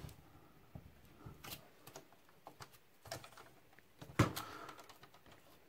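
Scattered light clicks and knocks from handling the metal chassis and plastic parts of a dismantled Denon hi-fi unit, the loudest a sharp knock about four seconds in.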